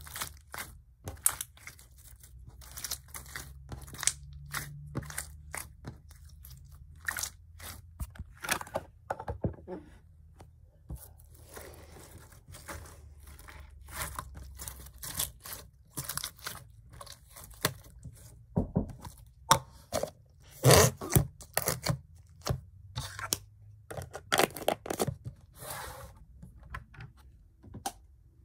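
Pink slime squeezed, stretched and kneaded by hand on a tabletop, giving an irregular run of sticky pops, clicks and crackles, busiest about two thirds of the way through.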